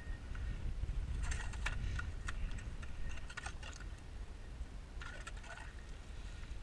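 Hand-crank ice auger worked in and lifted out of a freshly drilled hole in pond ice: irregular clinks and scrapes of metal on ice in two clusters, over a low wind rumble on the microphone.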